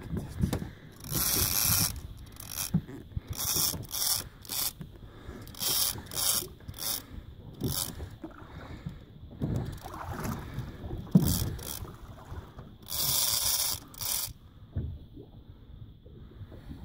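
Big-game trolling reel on a heavily bent stand-up rod, working under load against a hooked fish. About ten short hissing, scraping bursts of reel drag and gear noise come at irregular intervals, with a sharp knock about eleven seconds in.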